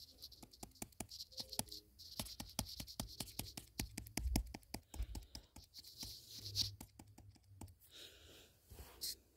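A stylus tapping and scratching on a tablet's touchscreen during digital drawing: many quick, irregular clicks with a faint scratching hiss, and a few duller knocks about halfway through.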